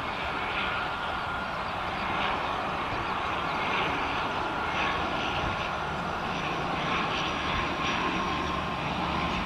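ATR 72 turboprop on final approach, gear down, its engines and propellers running with a steady drone and a thin whine that sinks slightly in pitch. The sound grows gradually louder as the aircraft closes in.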